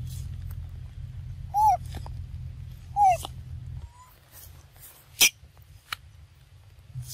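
Two short, arching squeaks from a young macaque, about a second and a half apart, over a low rumble that stops a little after the second squeak. A sharp click follows about five seconds in.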